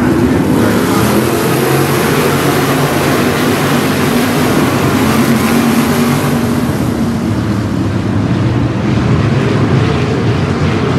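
A field of 305 sprint cars' V8 engines racing on the dirt oval, a dense, continuous engine sound. It is loudest through the first six or seven seconds as the pack sweeps past the grandstand, then eases as the cars move off down the track.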